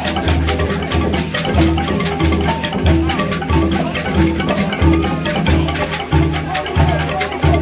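Dance music for a Mankon juju masquerade: a low pitched note repeats about every two-thirds of a second with a higher note between, over fast, even rattle shaking.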